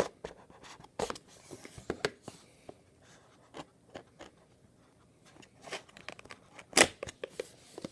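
Hands handling and opening a cardboard trading-card box: scattered light clicks and rustles of the cardboard, with one sharper snap near the end.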